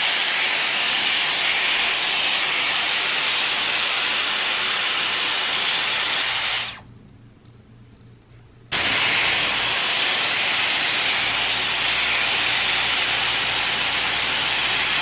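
Dyson Airwrap styler blowing air through its curling barrel: a steady hiss of rushing air and motor. It stops about seven seconds in and starts again about two seconds later.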